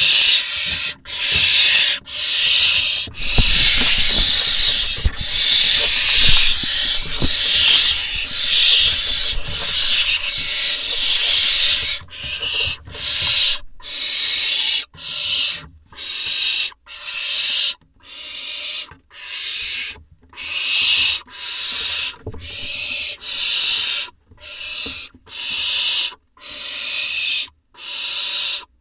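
Barn owl nestlings giving their rasping hiss begging calls, the 'snoring' for food: overlapping hisses at first, then separate hisses about one a second. Some low thumping and scuffling a few seconds in.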